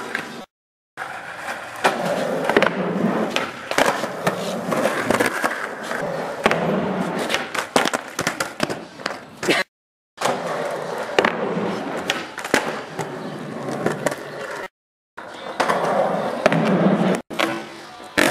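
Skateboard wheels rolling on concrete, with sharp clacks of the tail popping and the board landing. The sound cuts out completely for a moment three or four times.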